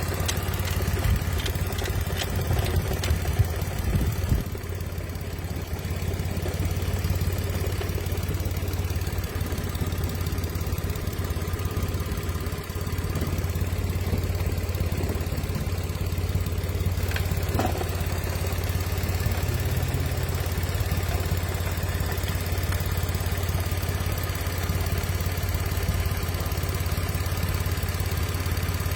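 Mitsubishi Mirage engine idling steadily, with a few light clicks and knocks in the first few seconds and one sharp click about 17 seconds in.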